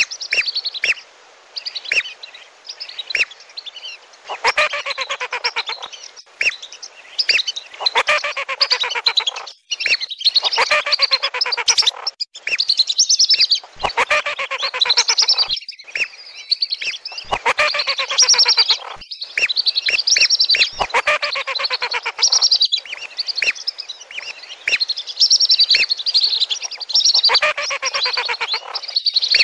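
A flock of lesser and wandering whistling ducks calling: a dense chorus of high, falling whistled notes in bursts of a few seconds, with brief breaks between them.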